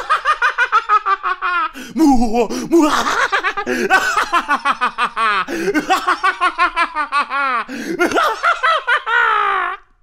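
A man laughing loudly and continuously in rapid, pitched 'ha-ha' pulses, several a second. There are brief catches of breath about two seconds in and again near the end, and a last drawn-out laugh stops just before the close.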